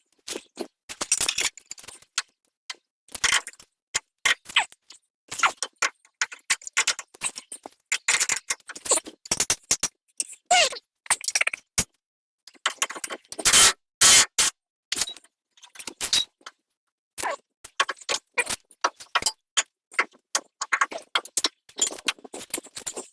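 Metal tools and suspension parts clinking, clicking and scraping in irregular bursts, with short silent gaps, busiest and loudest a little past halfway.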